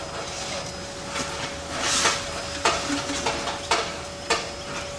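Steady hissing from a miniature ride-on steam locomotive standing with steam up, with a louder puff of hiss about two seconds in and a few sharp metallic knocks in the second half.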